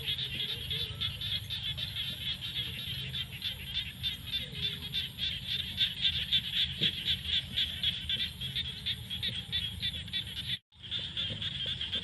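Dense chorus of frogs calling, a rapid steady pulsing with a thin high pulsing note above it. The sound cuts out for an instant near the end.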